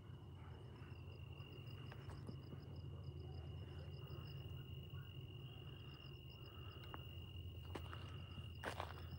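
Insects chirping faintly: a steady high trill with a quicker pulsed chirping that comes and goes over it, above a low steady hum. A couple of short rustles or crunches come near the end.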